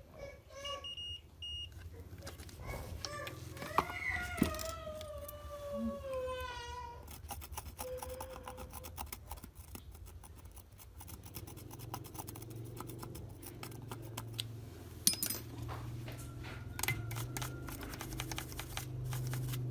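Bench work on a circuit board: scattered clicks and knocks of tools being handled, with a couple of short high multimeter continuity beeps near the start. A drawn-out falling tone sounds from about four to seven seconds in, and a low steady hum sets in about eleven seconds in.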